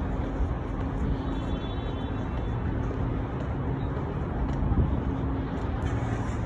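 Steady city traffic noise: a continuous low rumble of passing road vehicles, with a faint steady engine hum underneath.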